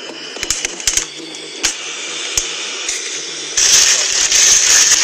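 Scattered crackles and clicks from peppers roasting over a gas burner flame. About three and a half seconds in, a clear plastic bag starts to crinkle and rustle loudly as it is handled.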